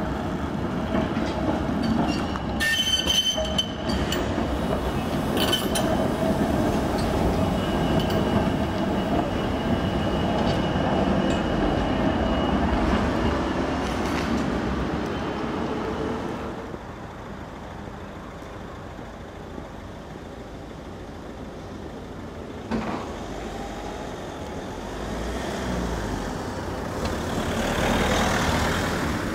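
Munich trams running through a street junction, steel wheels rumbling over the rails with clicks and thin high-pitched wheel squeals as one tram passes. The sound drops away after about sixteen seconds, a single sharp click comes near the end, and the next tram's rumble then swells as it approaches.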